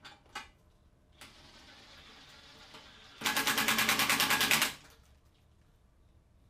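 A few light clicks, then a faint hiss, then a loud, even rattle of about nine pulses a second lasting about a second and a half, from a tool or device being worked in a garage shop.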